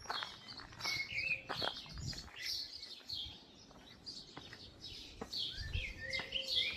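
Several songbirds chirping and twittering in quick, overlapping short notes, with faint wind rumble underneath.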